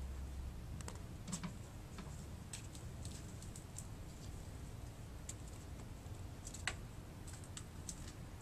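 Two young kittens romping: light, irregular clicks and taps of their play, one sharper tap about two-thirds of the way through, over a low room hum.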